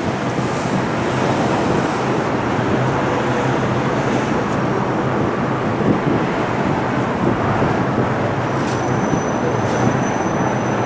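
Steady rushing background noise with a low hum underneath, like road traffic.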